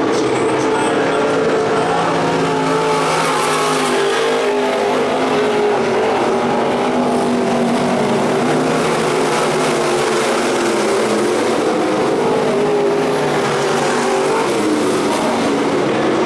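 Several dirt-track stock cars racing together, their engines overlapping in a loud, steady running sound whose pitches waver up and down as the cars lift and accelerate around the oval.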